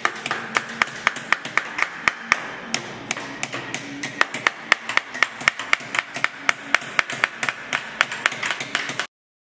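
A small hammer tapping a copper sheet by hand, chasing the embossed outline of a design: sharp metallic taps at about four a second, cutting off suddenly near the end.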